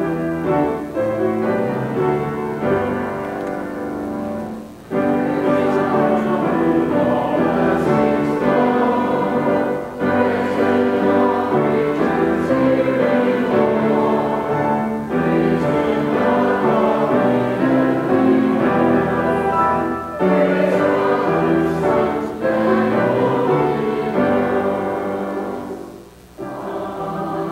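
Voices singing a hymn together with keyboard accompaniment, in phrases about five seconds long with short breaks between them.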